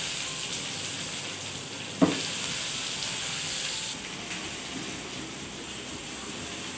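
Sliced onions sizzling in hot oil with whole spices in a wok as they are stirred with a spatula, with one sharp knock about two seconds in. The sizzling eases a little about four seconds in.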